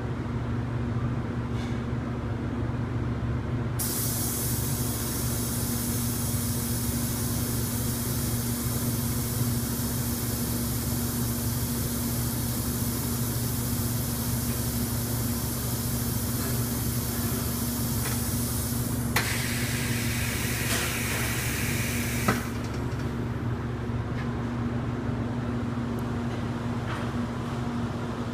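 Horizontal pneumatic cheese-cutting machine working a stroke over a steady low hum. Compressed air hisses from about four seconds in as the air cylinder pushes the cheese through the cutting wires. About nineteen seconds in there is a click and a changed hiss, which ends with a sharp clunk some three seconds later.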